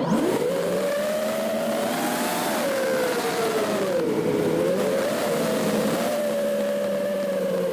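Small FPV quadcopter's electric motors and propellers whining. The pitch rises and falls with the throttle: up about two seconds in, down around four seconds, then steady.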